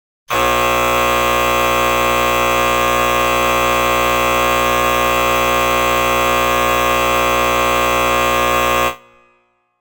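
Electric buzzer sounding one long, steady, harsh tone for about eight and a half seconds, then cutting off with a brief fade.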